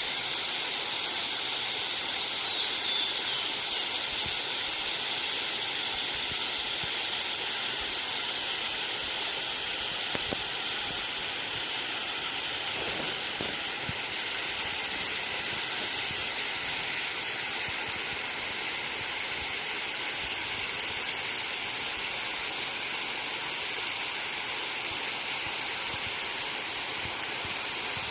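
Waterfall: water falling and splashing in a steady, unbroken rush with a bright hiss.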